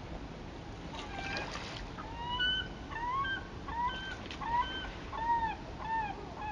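Geese honking in a quick series of about ten short rising-and-falling calls, starting about two seconds in, over the steady low rush of river water.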